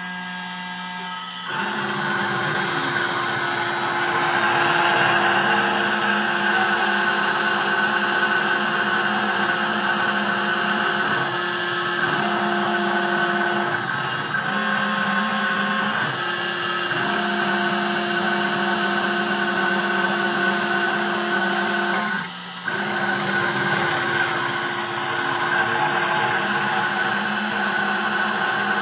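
CNC 3040 router's spindle running at high speed while the bit mills plastic board: a steady machine whine with cutting noise over it. The tones shift briefly a few times, and the level dips for a moment late on.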